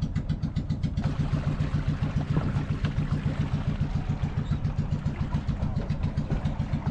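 Outrigger fishing boat's inboard engine running at a steady pace, an even, fast pulsing chug. From about a second in, water rushing along the hull adds a hiss.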